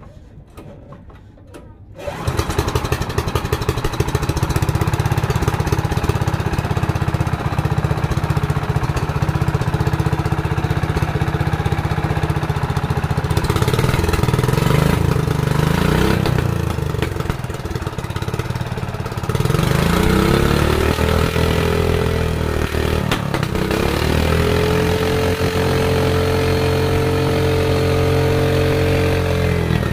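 Small boat engine driving a propeller shaft, starting abruptly about two seconds in and running steadily. It is a new engine still being warmed up with the shaft stiff in its pipe. Around two-thirds of the way through it is revved up and down, then held at a higher, steady speed.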